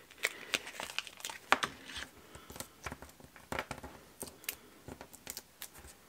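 Crinkling and small ticks of paper and foam adhesive dimensionals being handled and peeled off their backing sheet, irregular, with the loudest crackle about one and a half seconds in.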